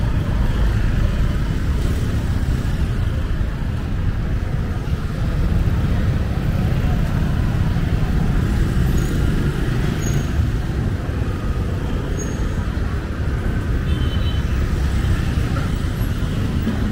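Busy street traffic, mostly motorbike and scooter engines running and passing close, making a steady, loud noise.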